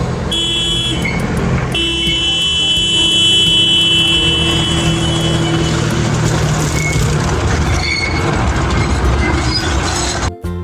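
A train horn sounds twice, a short blast and then a long one of about four seconds, over the steady rumble of the moving train.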